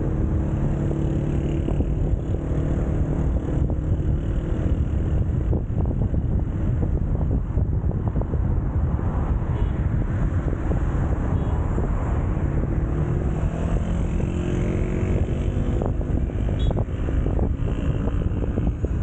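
Wind rumbling on the microphone of a car-mounted camera while driving in city traffic, over road and engine noise. Engines of nearby vehicles come and go, with one rising in pitch a little past the middle.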